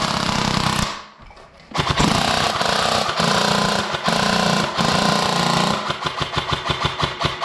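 Airsoft rifles firing in long full-auto bursts, a rapid mechanical rattle, with a short pause about a second in; near the end the fire breaks into rapid separate shots, several a second.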